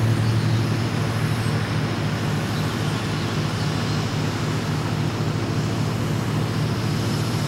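Diesel locomotive engine of an approaching train: a steady low drone with a slight pulse.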